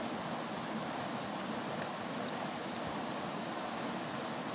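Steady outdoor rushing noise, even and unbroken, with a few faint clicks about two seconds in and near the end.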